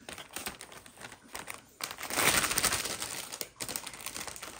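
Clear plastic packaging crinkling and crackling as it is handled, in a dense patter of small crackles that grows loudest from about two seconds in to about three and a half seconds.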